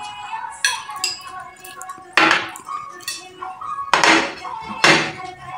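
Metal cutlery scraping and clinking against ceramic plates as food is scooped up quickly, with several sharper clinks about two, four and five seconds in.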